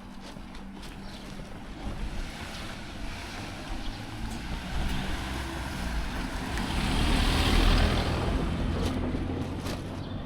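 Sea surf washing in with wind over the microphone: a steady rush that swells to a loud break about seven seconds in and then eases off.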